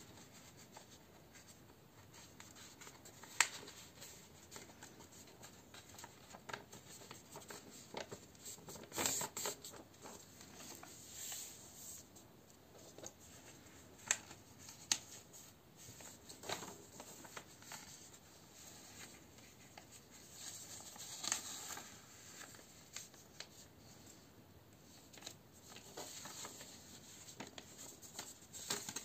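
A sheet of A4 paper being folded by hand: faint rustling and the scrape of fingers pressing the creases flat, with a few sharp crinkles.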